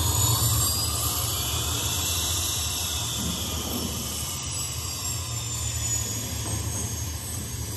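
Recorded jet airliner take-off sound effect: a steady rushing engine noise with a low rumble and a faint high whine, slowly easing off.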